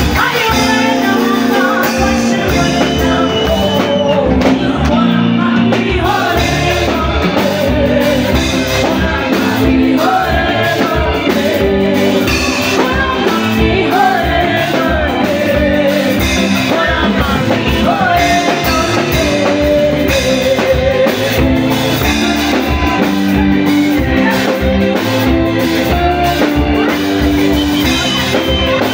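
Live band music: a singer's voice over a steady drum beat and backing instruments.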